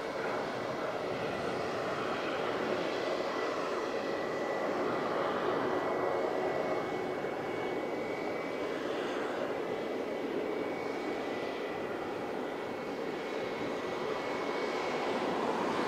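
Embraer KC-390's twin IAE V2500 turbofan engines running at taxi power: a steady jet whine with a thin high whistle over a broad rush, swelling slightly near the end.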